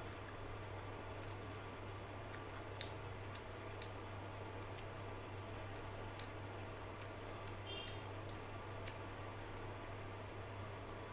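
Close-up eating sounds: a person chewing a mouthful of rice, dal and fried prawn, with a handful of sharp, wet mouth clicks scattered over a steady low hum.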